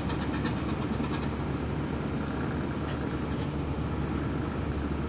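Ship's diesel engine running steadily, a low hum, with a quick run of faint ticks in the first second or so.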